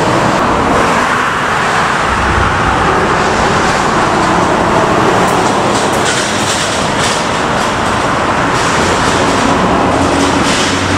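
Steady expressway traffic noise, a continuous hiss and rumble of tyres and engines. Near the end, a passing car's engine note comes up out of it.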